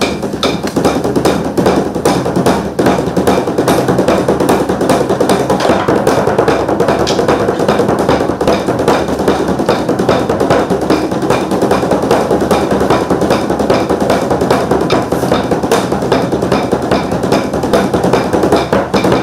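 Large Korean barrel drums (buk) beaten with sticks in a fast, dense, unbroken rhythm. The metallic clacking of yeot scissors, the taffy-seller's shears, is mixed in with the drumming.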